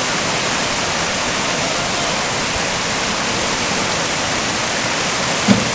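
Rushing water of a shallow river rapid: a steady, loud hiss of whitewater, with one short thump near the end.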